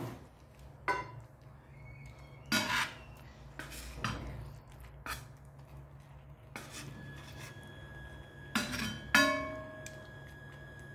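Stainless-steel tongs clinking and scraping against a stainless-steel pan while turning chicken breasts in a simmering yogurt sauce. About six sharp clinks, some leaving a brief metallic ring; the loudest come close together near the end. A steady low hum runs underneath.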